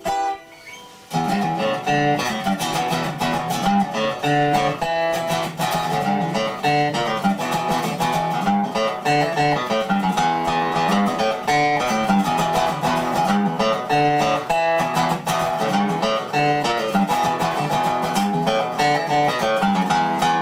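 Background music: a song with guitar picking and strumming, starting up about a second in.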